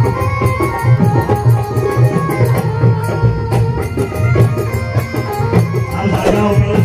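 Instrumental passage of a live Rajasthani folk bhajan: held melody notes over a fast, steady drum beat, with no singing.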